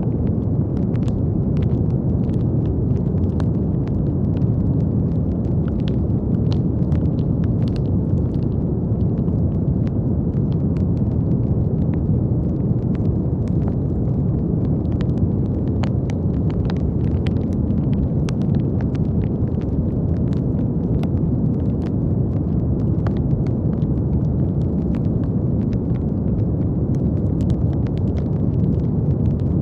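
Steady brown noise: a deep, even rushing hiss weighted to the low end, with light scattered clicks throughout.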